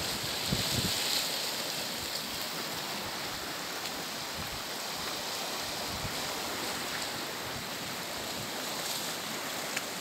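Sea surf washing against a rocky shore: a steady rushing hiss, with a few low wind buffets on the microphone in the first second.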